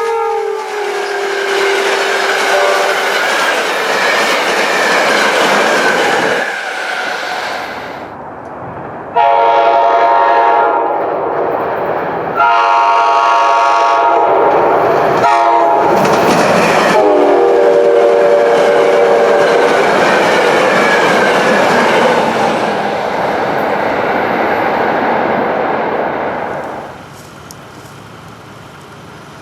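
Nathan K5LA five-chime air horns on passing SEPTA trains, sounding in several blasts. The chord drops in pitch as a train goes by, at the start and again about 17 s in, and in between comes the rumble and wheel clatter of the train passing. Louder horn blasts begin suddenly about 9 s and 12.5 s in, and the sound falls away near the end.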